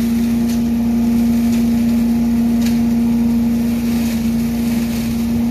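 Billy Goat debris vacuum loader's 18 hp V-twin Vanguard Magnum engine running as a steady drone, with leaves raked into the intake hose being sucked away.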